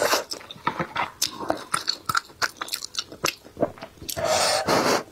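Close-miked chewing of a bite of sausage: quick, sharp, wet mouth clicks and smacks. Near the end comes a longer breathy rush about a second long.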